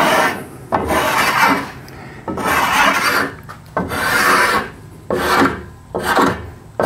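Stanley 6-inch block plane cutting shavings along a wooden paddle shaft: about six strokes, roughly one a second, each a short scraping shave that starts sharply.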